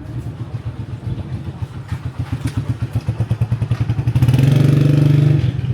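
A motorcycle engine passing close by, growing louder to its loudest about four seconds in, then falling away near the end.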